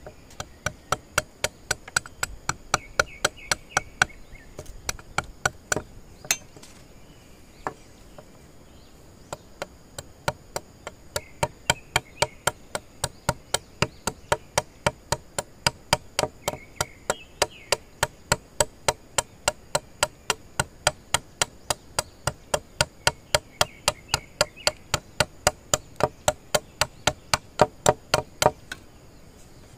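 A blade chopping into bamboo in a steady rhythm of about three strokes a second. It stops for a few seconds about six seconds in, then resumes. Insects chirp faintly in the background.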